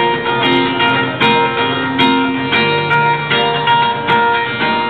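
Guitar strumming chords in a steady rhythm, an instrumental break in a pop song accompaniment with no singing.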